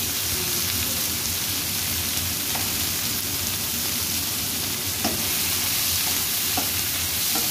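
Sliced onions, tomatoes and squash cubes sizzling steadily in hot oil in a frying pan, with a spatula stirring them and a few light knocks against the pan.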